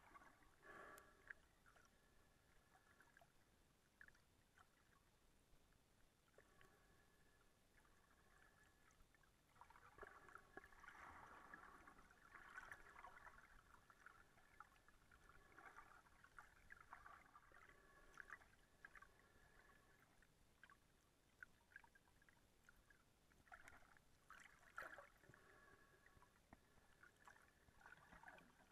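Near silence: faint muffled underwater sound picked up through a camera's waterproof housing, with a few soft clicks and a slightly louder swell of watery noise about ten seconds in.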